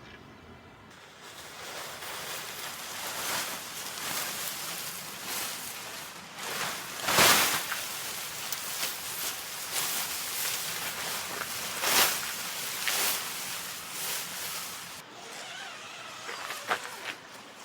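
Steady rustling noise with scattered sharp snaps or cracks, the loudest about seven seconds in and again about twelve seconds in; the rustling drops away about fifteen seconds in.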